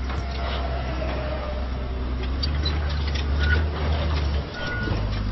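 A steady low mechanical rumble under a haze of noise, easing off briefly about four and a half seconds in, with a few faint short high beeps near the end.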